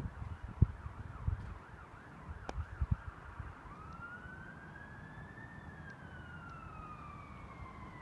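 Emergency vehicle siren passing at a distance, first in a fast yelp, switching about four seconds in to a slow wail that rises and then falls. A few low thumps and clicks of wind and handling on the microphone in the first three seconds.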